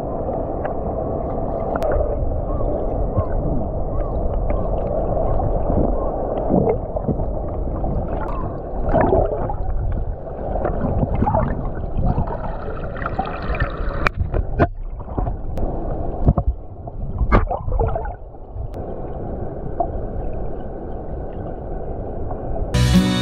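Water heard from below the surface: a muffled, low rushing wash with gurgling, and a few sharp knocks about two thirds of the way through.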